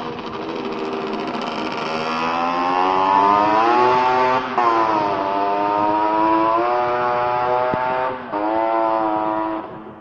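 Racing motorcycle engine accelerating hard through the gears, its pitch climbing and then dropping sharply at two upshifts, about four and eight seconds in. It grows louder over the first few seconds and cuts off abruptly just before the end.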